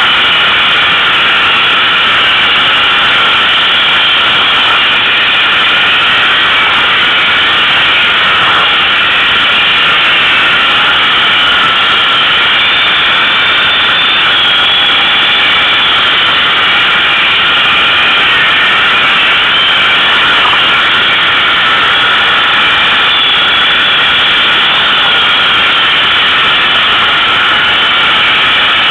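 ATV engine running steadily while the quad rides along the trail, loud and even, with no breaks or big changes in speed.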